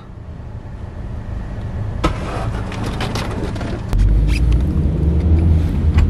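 A snow brush sweeping and scraping snow off a car windshield, heard from inside the car in a few scratchy strokes from about two seconds in. About four seconds in it gives way to the steady low rumble of the car driving, heard from the cabin.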